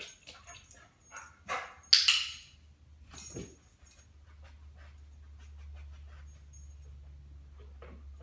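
A yellow Labrador's claws click and scuff on a hardwood floor as it moves to its dog bed, with a louder thump about two seconds in as it settles onto the bed. After that a steady low hum is heard.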